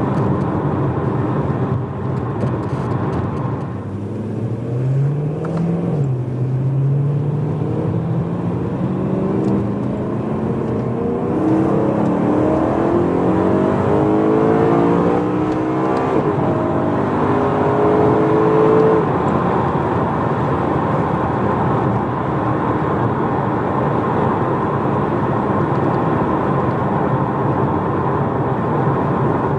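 BMW E92 M3's 4.0-litre V8 heard from inside the cabin through a primary-decat X-pipe and stock back box. The engine pulls and rises in pitch in several steps, as the DCT gearbox shifts quickly up through the gears, loudest a little past halfway. It then settles to a steady cruise.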